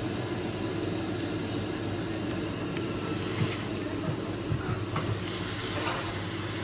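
Steady mechanical hum and hiss, with a few faint light clicks around the middle.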